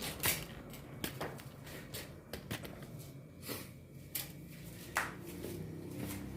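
Scattered light clicks and knocks, about seven, irregularly spaced, from hands handling the washing machine's metal and plastic parts and tools, over a low steady hum.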